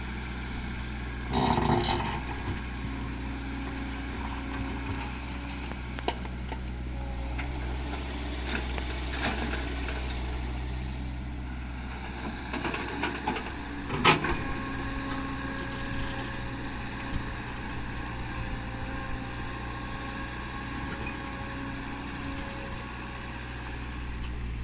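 Hydraulic excavator's diesel engine running steadily while the bucket works through rocky soil, with a louder burst about a second and a half in and a sharp knock about halfway through.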